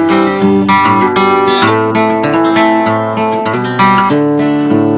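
Acoustic guitar music: strummed chords with held notes ringing between the strums.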